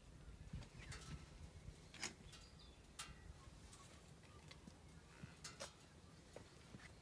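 Near silence: faint outdoor background with a low rumble and a few soft clicks.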